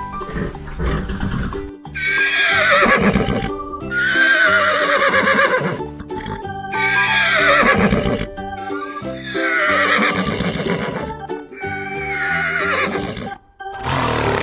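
Horse whinnying about five times, each neigh a high call that slides down in pitch, over background music.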